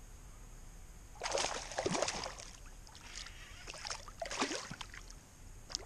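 Water splashing in two irregular bouts, about a second in and again near the middle, as a hooked bass thrashes at the surface beside a kayak.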